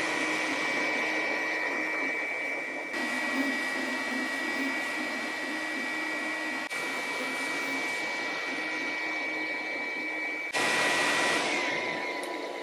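Elegoo Neptune 4 Plus 3D printer running a print at full speed in ultra fast mode: a steady rushing of its fans with a high steady whine. The sound shifts abruptly three times and fades near the end.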